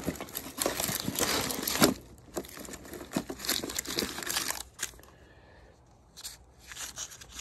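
Cables, plastic packaging and cardboard rustling and crinkling as a hand rummages through a box of computer cords. Busiest in the first two seconds, it comes in scattered bursts until almost five seconds in, then dies down to a few faint rustles near the end.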